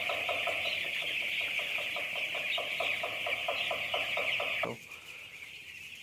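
Dense chorus of thousands of eight-day-old broiler chicks peeping in a poultry shed, with a rapid regular pulse of about four or five strokes a second underneath. About three-quarters of the way through, the pulse stops and the peeping drops suddenly to a quieter level.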